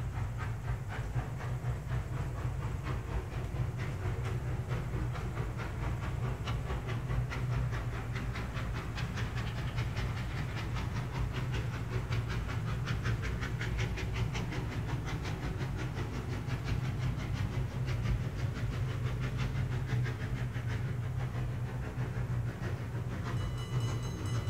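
Model steam locomotive running sound: a rapid, regular chuffing over a steady low hum, from an HO-scale Rivarossi 141 R heading a freight train. A few steady higher tones join in near the end.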